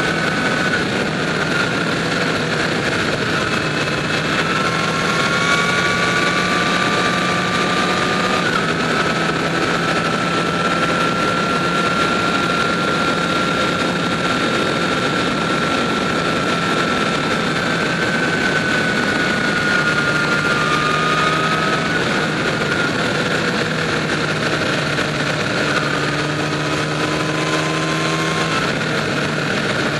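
Motorcycle engine running at road speed under a steady rush of wind and tyre noise, its pitch drifting slowly up and down with the throttle and rising again near the end.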